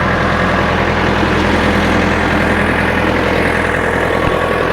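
Big backhoe tractor's engine running steadily at an even speed.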